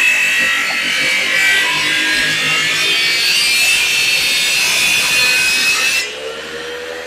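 A saw cutting through wood, a loud rasping with a high whine over it. About six seconds in it cuts off abruptly to a quieter, lower hum.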